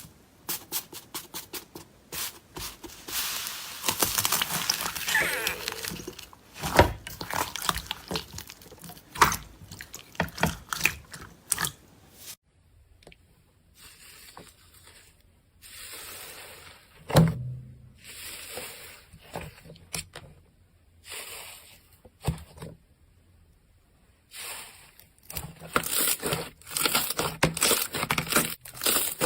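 Hands squishing, stretching and pressing slime: runs of sharp crackling pops and squelches, softer and sparser for a stretch in the middle before dense popping picks up again near the end.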